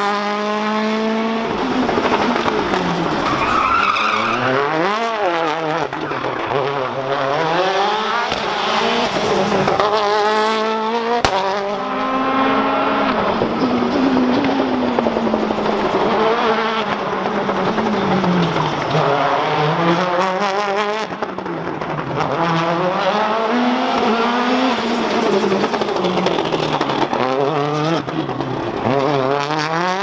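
Citroën DS3 WRC rally car's 1.6-litre turbocharged four-cylinder engine at full attack, its note climbing and dropping over and over as it accelerates, shifts and brakes through corners.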